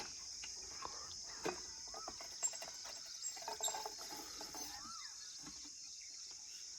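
Quiet outdoor rural ambience: a steady high-pitched insect buzz, with a few short rising-and-falling bird calls and some faint clicks.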